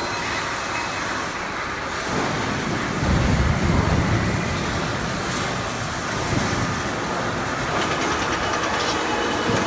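Automatic HVAC duct production line running: steady machine noise, with a louder low rumble for a couple of seconds about three seconds in.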